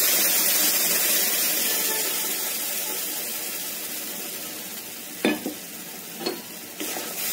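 Ground onion-tomato paste sizzling as it hits a hot kadhai, the sizzle fading steadily as the paste settles. Three sharp knocks come near the end.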